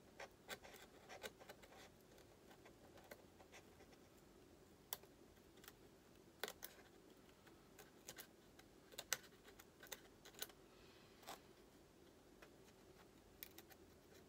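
Faint, irregular clicks and short scratches of a hobby knife cutting into the foam wing of an RC jet.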